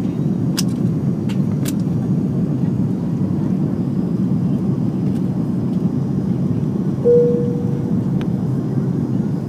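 Steady cabin rumble of an Airbus A330 on approach, engine and airflow noise heard from a window seat. A short single tone sounds and fades about seven seconds in.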